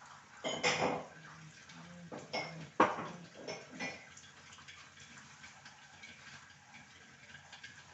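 Metal pots and utensils clanking together: a few sharp knocks with a ringing metallic edge in the first four seconds, then only a low steady background.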